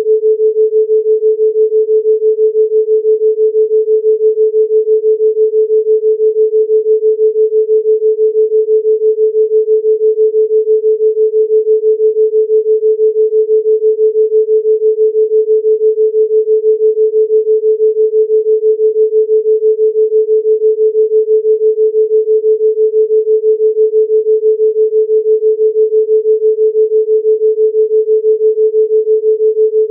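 Steady 432 Hz pure sine tone, pulsing evenly a few times a second: a theta-rate binaural beat.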